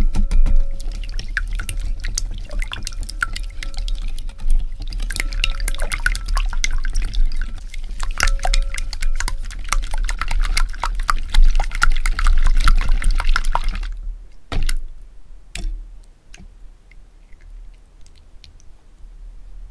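Wire whisk beating eggs, vegetable oil and brown sugar in a glass bowl: fast clicking of the tines against the glass with wet sloshing of the liquid. The whisking stops about two-thirds of the way through, followed by two separate knocks and faint drips as the mixture runs off the lifted whisk.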